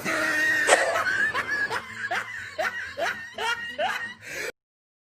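Baby laughing: a high-pitched laugh breaking into a run of short rising 'ha' pulses, about two or three a second, that cuts off abruptly near the end.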